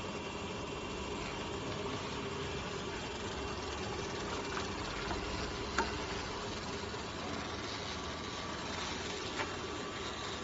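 Pipe straightening machine running steadily, its motor humming as the rollers feed a hollow metal pipe through, with a few light clicks, the sharpest a little over halfway through.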